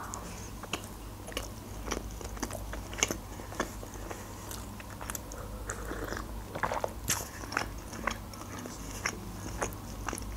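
Close-miked chewing of a soft burger: irregular wet mouth clicks and smacks. A sip from a cup comes about six seconds in.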